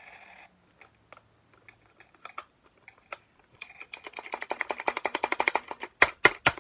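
A fast run of sharp clicks, about a dozen a second, for roughly two seconds, followed by three loud knocks near the end, after a few scattered single clicks.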